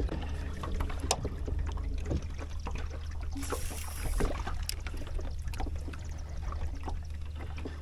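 Small waves lapping and splashing against a fishing boat's hull, with a steady low rumble underneath and scattered light clicks.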